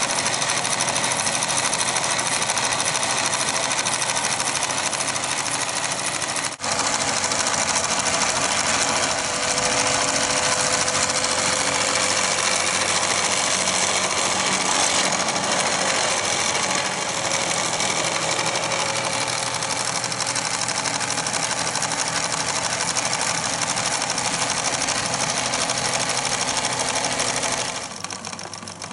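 Pathescope 200B 9.5mm film projector running, its motor and mechanism making a fast, even mechanical clatter. The oiling points have just been oiled and it is sounding smoother, though it still needs new grease. The sound breaks off briefly about six and a half seconds in and turns quieter near the end.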